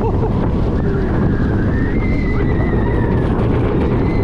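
Steel rollercoaster train running at speed along its track, heard from the front row as a loud, steady rush of wind on the microphone mixed with the rumble of the wheels on the rails. A faint high wavering squeal rises and falls about halfway through.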